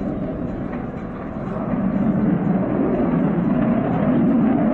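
Jet noise from a Panavia Tornado's two RB199 turbofan engines as it flies its display. It is a steady rush that grows louder about two seconds in.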